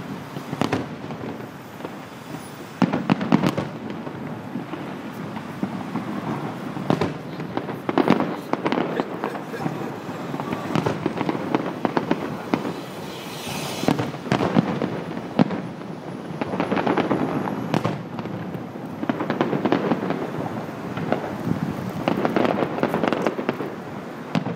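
Aerial firework shells bursting in a steady series of booms every second or two, with crackling between them.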